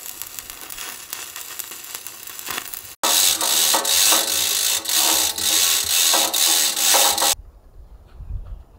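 Stick-welding arc crackling and sizzling steadily for about three seconds. Then, suddenly louder, a hand-pulled chain hoist clicks and rattles rhythmically as its chain is hauled, stopping about seven seconds in.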